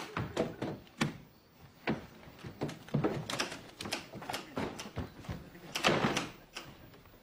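A door opening and shutting, and a man's heavy, uneven footsteps thudding and scuffing on the floor as he lurches about. A series of irregular sharp knocks, with a louder cluster about six seconds in.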